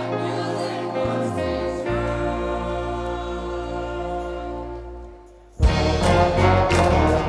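Live band and choir holding long sustained chords that fade away about five seconds in. A moment later the band starts a new piece loudly, with regular drum strikes.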